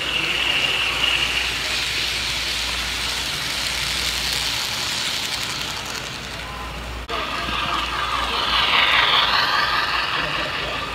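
Model train running on layout track: a diesel locomotive rolls past with wheel and motor noise and a steady high tone. After an abrupt cut about seven seconds in, a string of freight cars rolls by, louder, with wavering high-pitched tones.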